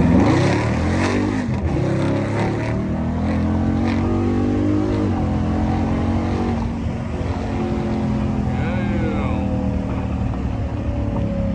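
Dodge Charger's 392 (6.4-litre HEMI V8) engine pulling hard through the gears: the revs climb and drop sharply at shifts about 1.5 and 5 seconds in, then the engine settles into a steady cruise.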